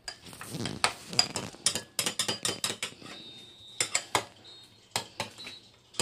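Metal spoon stirring and scraping in a clear container of microwave-steamed egg, with a run of irregular sharp clinks and clicks.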